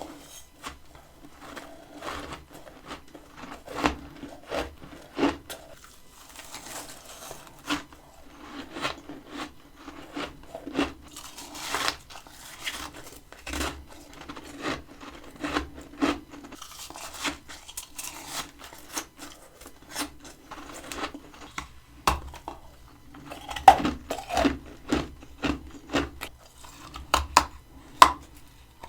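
Close-up biting and chewing of fluffy freezer frost: many sharp, irregular crunches in quick succession, louder and more clustered near the end.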